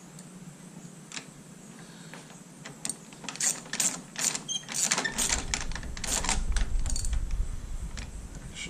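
Hand ratchet clicking in quick runs as it works a stubborn shifter-peg bolt loose on a motorcycle. The clicking starts about three seconds in.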